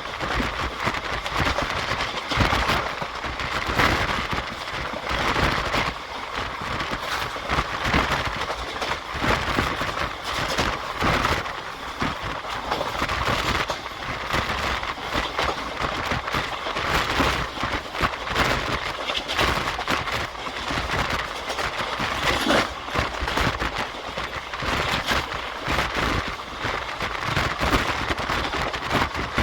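Indian Railways passenger coach running at speed, heard from a window seat: a continuous rush of running and wind noise with dense, irregular clicking and rattling from the wheels and coach over the track.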